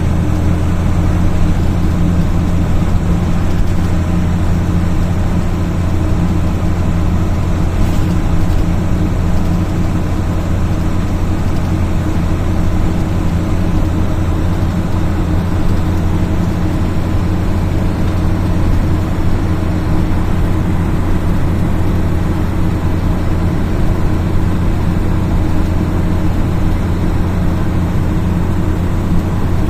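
Mercedes-Benz Eurocar G3 coach's diesel engine running steadily, a constant low drone with no change in pitch.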